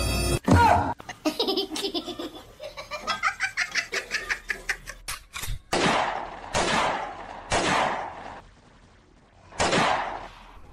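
A person laughing in quick, rapid pulses, then four short hissing bursts: three about a second apart and a fourth after a pause. The bursts are breathy pretend gunshot noises for a finger-gun game.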